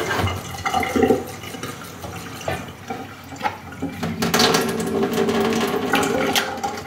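Thin stream of water from a kitchen faucet pouring into a wine glass and splashing into a stainless steel sink, with a brief knock about a second in. From about four seconds in, with the glass standing under the stream, the pour takes on a steadier pitched ring as the glass fills.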